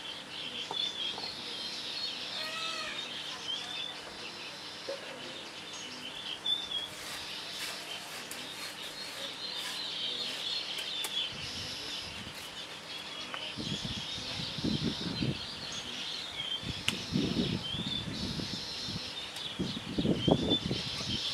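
Songbirds chirping and calling over and over. Several short low sounds come in during the second half.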